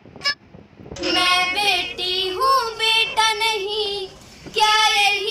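A child's voice singing a song with held, wavering notes, coming in about a second in, with a short break near the end.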